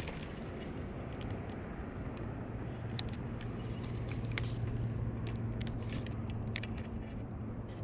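A low steady engine hum, like a motor vehicle running nearby, comes in about two seconds in and holds. Scattered light clicks from a spinning reel being handled sound over it.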